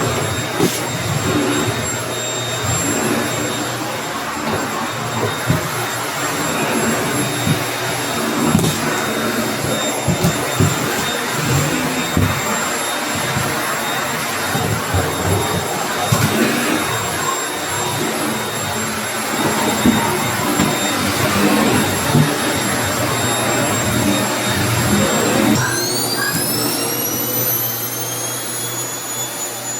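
A vacuum cleaner running across the floor, with a steady motor whine over its rushing airflow. About 25 seconds in the motor's whine rises in pitch and holds at the higher note.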